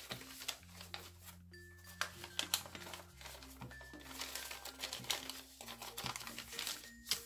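A sheet of origami paper crinkling and rustling in many short crackles as it is folded by hand and its layers are pulled and pressed.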